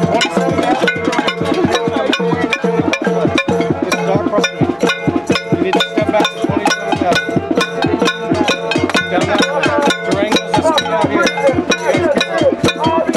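Protest crowd making noise: a fast, even beat of hand-struck percussion, about three to four knocks a second, over a steady held tone, with voices shouting through it.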